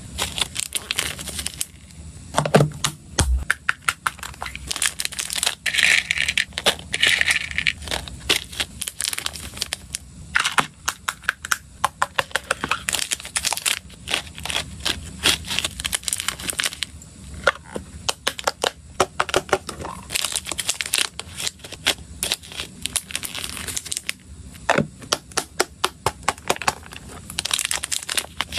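Small clear zip-top plastic bags crinkling, with many rapid clicks and taps as small dry hamster treats are put in with plastic chopsticks and a spoon.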